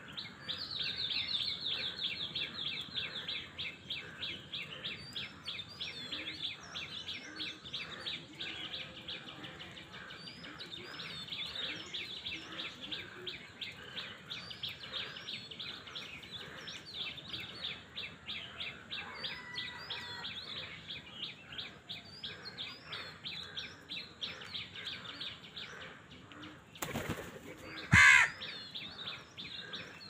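Birds chirping rapidly and without a break, high-pitched, with a short, much louder harsh sound near the end.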